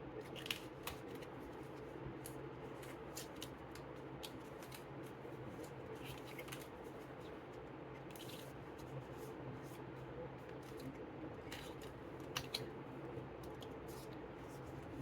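Faint paper handling of a lift-the-flap picture book: pages being turned and flaps lifted, giving scattered short rustles and light taps over a steady low hum.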